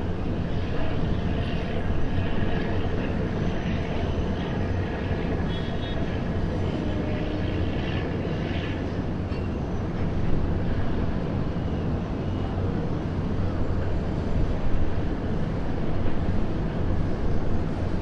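Wide city ambience heard from a high observation deck: a steady wash of distant traffic and city noise with a low hum underneath.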